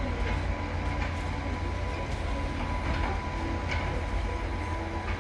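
Diesel engine of a Cleanaway garbage truck rumbling steadily as the truck creeps along slowly, with a faint steady high tone running alongside.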